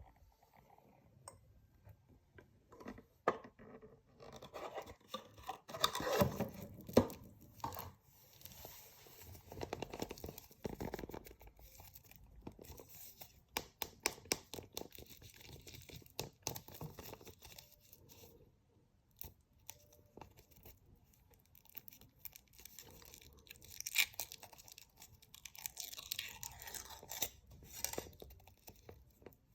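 Candy wrapper crinkling and tearing in short bursts, with scattered sharp clicks and snaps, as surprise eggs are unwrapped and opened by hand.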